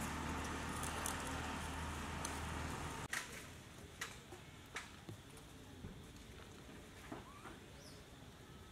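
A motor hums steadily in the background and cuts off abruptly about three seconds in. After that the sound is quieter, with scattered light clicks and a few faint, short squeaky calls.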